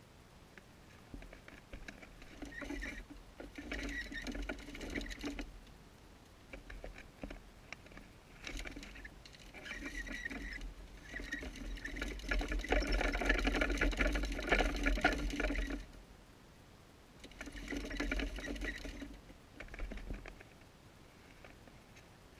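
Pocket gopher running on a plastic exercise wheel: a rapid pattering rattle of paws and the spinning plastic wheel. It comes in several bouts with short pauses between, the longest and loudest in the middle.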